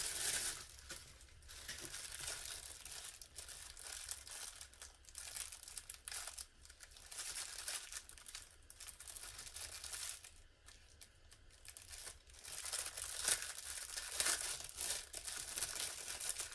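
Crinkling and rustling of tissue paper and a thin clear plastic bag being handled and pulled open, in irregular crackles, quieter for a couple of seconds around ten seconds in.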